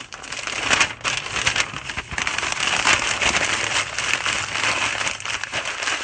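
Sheet of newspaper being crumpled and squeezed by hand into a tight ball, a dense, continuous crackling.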